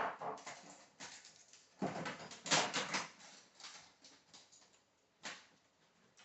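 Plastic and metal parts of a laser printer clicking and rattling as it is pried apart by hand, with a louder burst of rattling about two seconds in and a single sharp click near the end.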